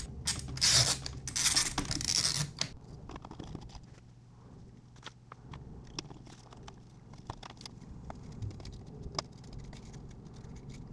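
Plastic dash control panel parts and circuit board being handled and taken apart on a foam sheet: a few seconds of scraping and rustling, then scattered small clicks and taps.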